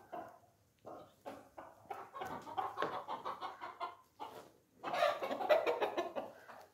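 Chickens clucking in a rapid series of short calls, with a louder, denser burst of calling about five seconds in.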